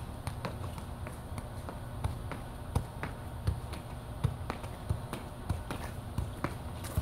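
Soccer ball being juggled with feet and knees: a run of dull, irregular thuds, roughly one every half second, as the ball is kicked up again and again.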